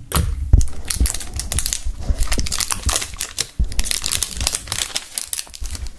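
Plastic film crinkling and crackling in irregular bursts as it is pulled off a tightly compressed, shrink-wrapped towel, with a few dull handling knocks.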